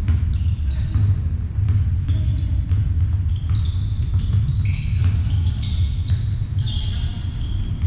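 Basketball game on an indoor court: sneakers squeak on the floor in many short, high chirps and the ball bounces, over a steady low rumble.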